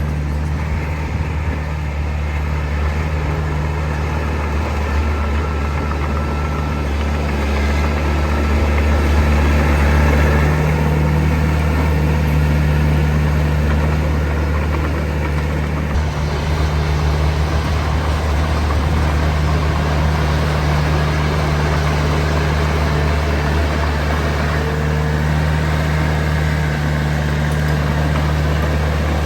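Heavy diesel engine of earthmoving machinery running steadily with a deep hum, swelling a little about ten seconds in.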